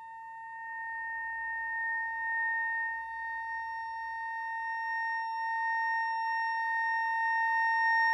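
Ondes Martenot holding one long high note in a nearly pure tone. The pitch stays steady while the volume slowly swells.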